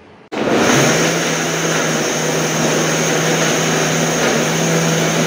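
Silver Crest SC-1589 blender motor running at full power on the pulse button, its blades crushing hard tiger nuts and coconut in water. It starts abruptly just after the start and runs steadily with a high whine over the grinding churn. There is too little water in the jar for the load.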